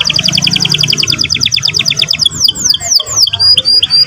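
Canary singing: a fast, even trill of rapidly repeated notes for about two seconds, then a run of falling whistled sweeps and short repeated notes.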